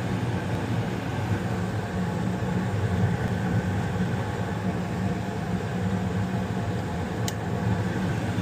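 2018 Tempstar two-stage gas furnace running in high fire, a steady low hum of the inducer motor, burners and circulating blower. A single sharp click near the end.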